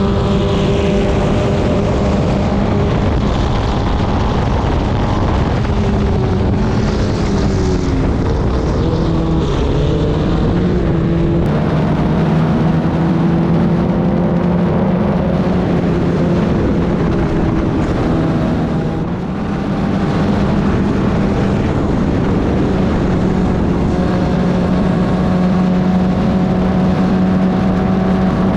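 Club Ford (Formula Ford) race car engine running hard at racing speed, its pitch falling and climbing again with gear changes, with a brief dip in level about two-thirds of the way through.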